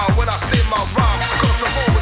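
Electronic dance music with a steady, driving kick-drum beat.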